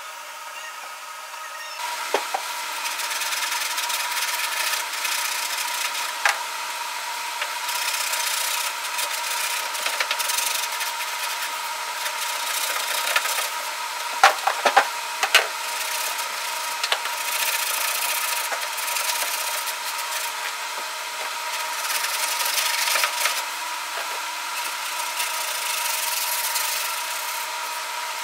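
Power sander running over body filler on a steel dash patch panel: a steady motor whine under a rough rubbing hiss that swells and eases as the sander works, with a few sharp knocks near the middle.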